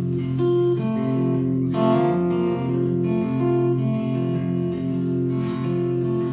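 Acoustic guitar playing a steady run of strummed and picked chords as an instrumental turn between sung lines of a song.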